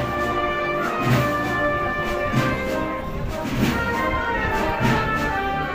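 A wind band (banda de música) playing, with brass holding long notes over a slow, regular drum beat of about one strike every second and a quarter.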